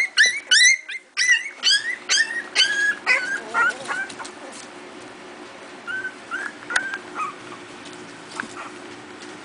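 Four-week-old Miniature Pinscher puppies yipping and squealing while they play-fight: rapid high-pitched cries, several a second for the first four seconds, then a few scattered cries about six to seven seconds in.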